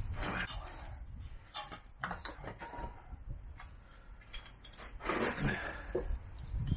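Scattered light clicks and knocks of a screwdriver and small metal parts at a motorcycle's rear wheel hub, with rustling of gloved hands handling them, as a tight small screw is worked out.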